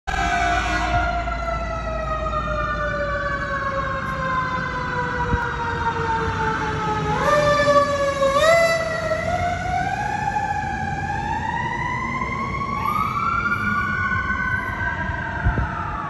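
Fire truck siren wailing, its pitch sliding slowly down for several seconds, jumping back up twice, then climbing slowly again and starting to fall near the end.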